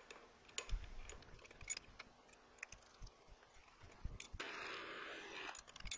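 Light metallic clicks and taps of tooling being handled at a milling machine's drill chuck, with a brief rasping sound about four and a half seconds in.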